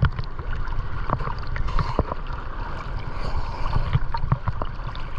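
Seawater sloshing and splashing against a camera held at the waterline, with a low wave rumble and many short irregular knocks and clicks from water slapping the housing.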